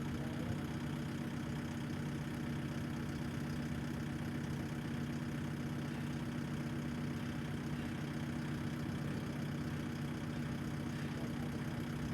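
Excavator's diesel engine idling steadily, an even low hum that does not change.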